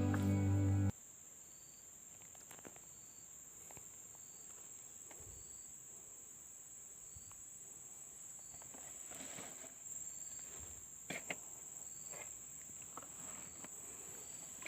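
Steady high-pitched insect drone, with a faint short chirp about once a second and a few light clicks and rustles, after background music stops about a second in.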